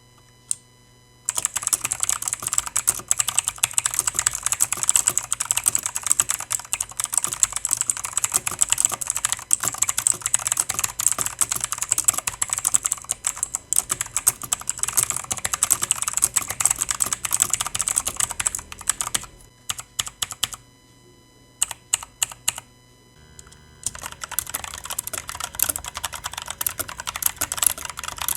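Fast, continuous typing on a mechanical keyboard with Outemu switches, a dense stream of key clicks. Past the midpoint the typing thins to a few separate keystrokes, then resumes steadily for the last few seconds.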